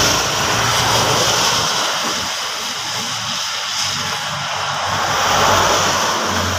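Vehicle engine running steadily with the transmission removed, so the clutch and flywheel turn in the open. It is a test run after a new rear crankshaft oil seal, to check whether the seal still leaks.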